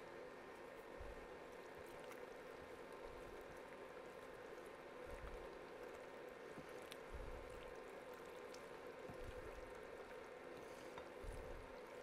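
Faint, wet stirring of sauce-coated penne in a glass bowl with a spoon, breaking up pasta that has stuck together, with a few soft low knocks. A steady faint hum runs underneath.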